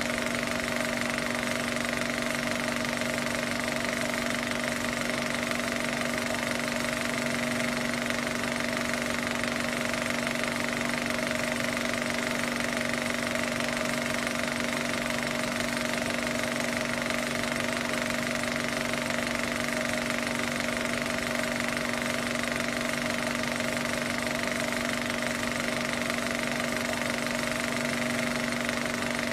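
Film projector running, a steady unchanging mechanical sound with a constant hum.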